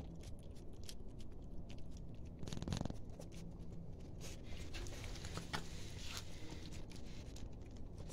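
Cats and kittens eating soft wet food, with many small wet chewing and lip-smacking clicks, and a brief low buzzing noise a little under three seconds in.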